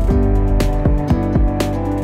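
Background music with sustained notes and a steady beat about once a second.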